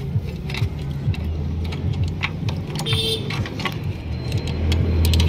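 Metal tools clicking and scraping against metal as a rod and a screwdriver lever a Royal Enfield 350's starter one-way clutch bearing out of its seat. A vehicle engine hums steadily in the background, louder about a second in and again near the end.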